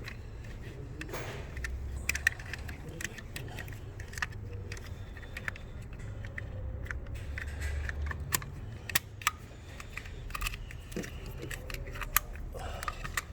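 Scattered sharp clicks and light rattles of a wiring harness connector being handled and plugged back into an engine computer (PCM), over a steady low hum.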